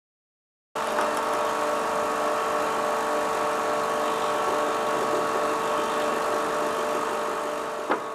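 Hydraulic system of a steam-weeder prototype test rig running: a steady whine with several held tones that starts abruptly about a second in, after silence, with one sharp knock near the end.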